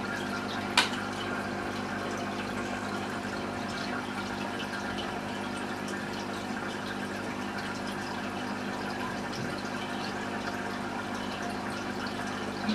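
Aquarium pump running: steady bubbling and trickling water over a steady low hum, with small scattered drip-like ticks and one sharp click about a second in.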